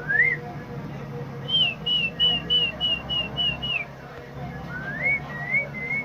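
Whistling in clear, pure notes. It opens with a rising whistle, then gives a quick run of about eight short identical notes, about four a second, ending on a falling note. Near the end come a rising glide and a few level notes.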